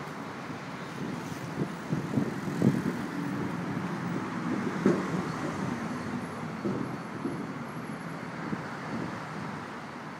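Vehicle crossing the Williamsburg Bridge: a steady rumble with irregular low knocks and clatter, loudest between about two and seven seconds in.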